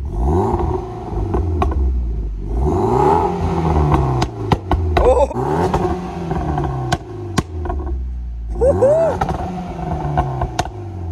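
Mitsubishi Lancer Evolution X's turbocharged four-cylinder engine revved four times through a new Invidia Q300 exhaust, each rev rising and falling back to idle. Several sharp pops come from the exhaust between the revs.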